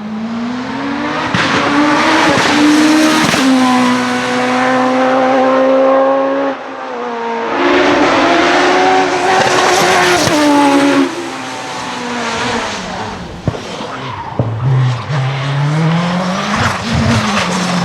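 Racing car engines accelerating hard at full throttle up a hillclimb. The engine pitch climbs and then drops sharply several times as gears change.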